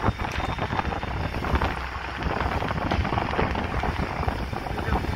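Wind buffeting a phone microphone on a moving boat, a loud crackling rush, with a low steady rumble of the tow boat's engine underneath.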